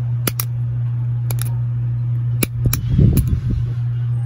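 Small plastic chess pieces clicking as they are handled, a series of sharp separate clicks with a brief clatter about three seconds in, over a steady low hum.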